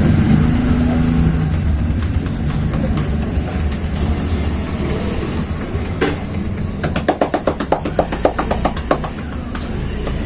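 A barber's hands slapping rhythmically in percussion (tapotement) massage: one strike, then a quick run of sharp slaps at about five a second for some two seconds in the second half. Under it is a steady low rumble.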